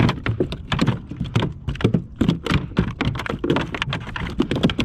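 Rapid irregular knocking and tapping on a plastic kayak, several knocks a second, as a just-caught fish and gear are handled on board.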